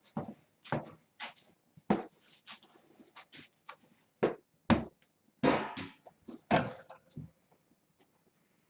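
Cat litter being scooped: irregular sharp knocks of the scoop against the litter box and short scraping rustles of litter, several a second with pauses.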